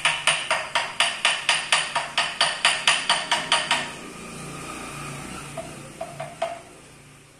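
Rapid, even knocking, about four knocks a second, that stops a little past the middle, followed by a few scattered knocks.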